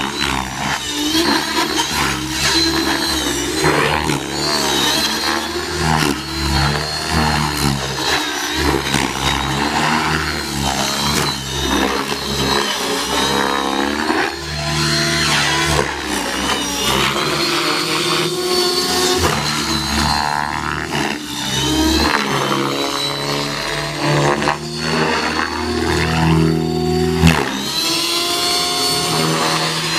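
Align T-Rex 600E electric RC helicopter flying stunts: its electric motor and rotor give a continuous whine that rises and falls in pitch as it manoeuvres.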